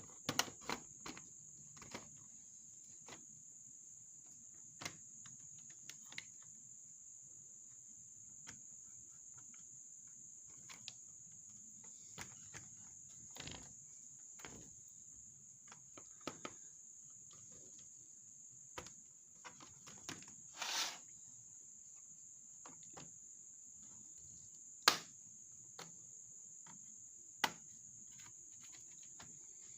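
Scattered small clicks and taps of tools and parts on a laptop's plastic case during disassembly, over a steady high-pitched background drone, possibly insects chirring.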